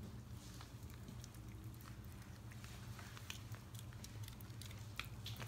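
Italian greyhound licking its lips and mouthing the last of a snack: faint, scattered small wet clicks, over a steady low hum.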